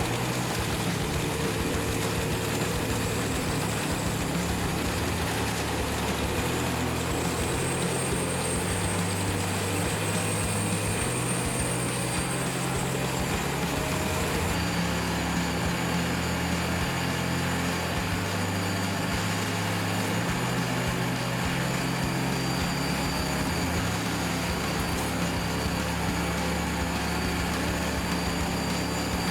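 Large wood chipper's engine running steadily under load, a loud continuous mechanical noise with low tones that shift in pitch now and then.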